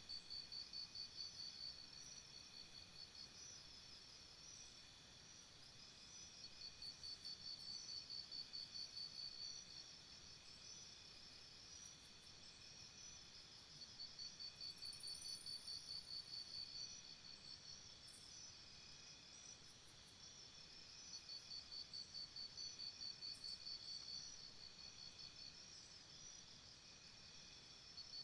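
Morning jungle ambience of insects. A high, pulsing insect call comes in bouts of about three seconds, roughly every seven seconds, over a steady high-pitched chorus of other insects, with faint scattered high chirps.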